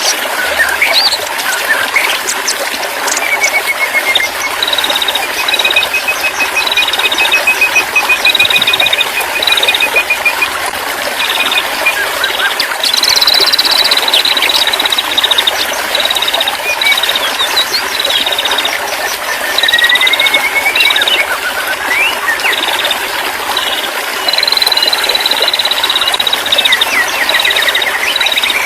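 Birds calling in a bird-therapy recording: short rattling trills repeated about once a second, with a few rising slurred notes, over a steady loud hiss.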